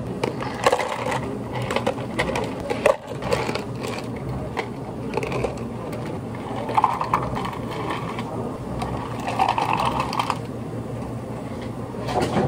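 Ice cubes scooped and dropped into clear plastic cups, clattering and clinking in several rounds with sharp clicks between.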